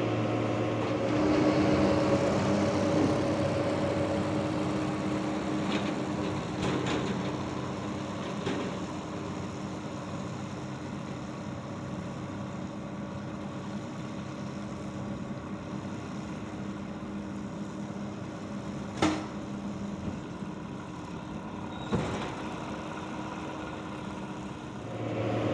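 New Holland tractor engine running steadily, with two short sharp clicks about three seconds apart near the end.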